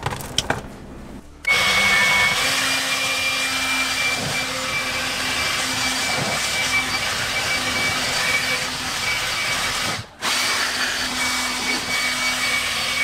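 Electric air blower switched on about a second and a half in and running steadily with a motor whine, blowing dust and leaves out of the empty cabin air filter housing. It cuts out for a moment about ten seconds in and starts again.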